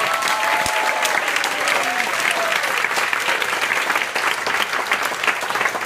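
An audience applauding steadily, a roomful of people clapping.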